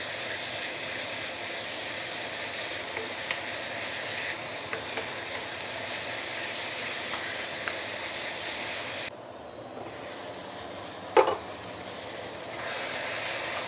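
Pork and vegetables sizzling in a non-stick wok while a wooden spatula stirs and scrapes through them. About two-thirds in, the sizzle drops lower for a few seconds, with one brief sharp sound near the end.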